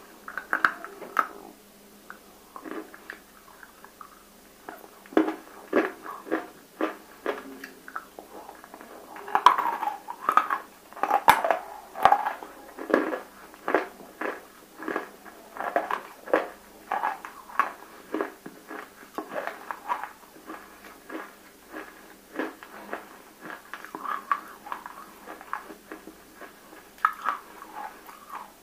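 Close-miked crunching and chewing of water-soaked, fully roasted nakumatt pieces: a run of irregular sharp crunches, sparse at first and coming thick and fast from about five seconds in.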